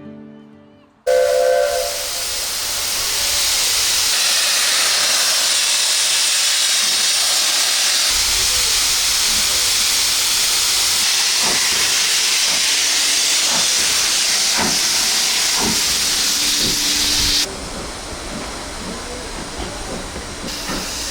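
Steam locomotive releasing steam: a loud, steady hiss that starts suddenly about a second in, with a few metallic clanks partway through, then cuts down abruptly to a quieter hiss near the end.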